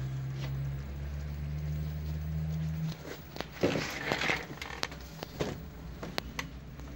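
A steady low hum that cuts off abruptly about three seconds in, followed by a brief rustle and a few sharp clicks and knocks.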